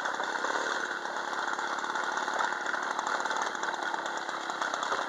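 Motobécane 103 MVL moped's small two-stroke single-cylinder engine running steadily while the moped is ridden slowly.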